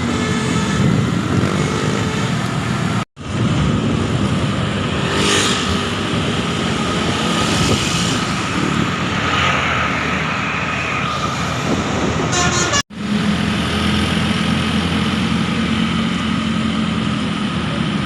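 A tour coach's engine running amid road traffic, broken twice by sudden cuts, about three seconds in and again near thirteen seconds.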